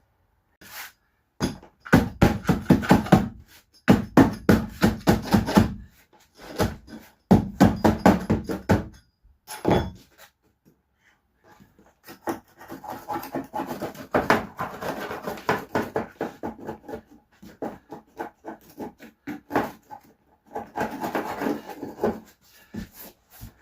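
Lino being pressed down and worked into the floor edges with a bolster: runs of rapid knocking and rubbing, with a short pause near the middle before a longer stretch of scraping and knocking.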